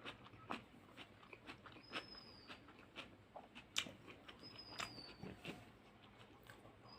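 Close-up eating sounds: chewing with irregular wet mouth clicks and smacks, a few each second.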